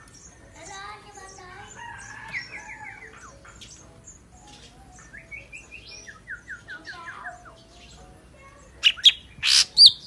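Golden-fronted leafbird singing: a varied run of whistled phrases, including quick series of short down-slurred notes, ending with a few loud, sharp high notes about nine seconds in.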